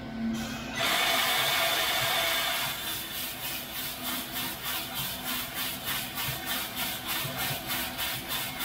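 Green coffee beans pour out of the hopper into the drum of a Loring 15k Falcon roaster: a loud rush starts about a second in and lasts under two seconds. Then the beans tumble in the turning drum, a steady rhythmic swish a few times a second.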